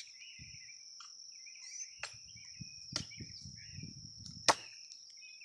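Steady high-pitched insect buzz with a few bird chirps. Two sharp knocks, one about three seconds in and a louder one about four and a half seconds in, heard as chopping.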